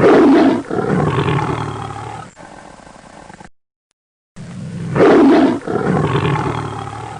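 Recorded roar of a big cat, played twice: each time a loud first roar, a second longer roar and a fading growl, with about a second of silence between the two playings.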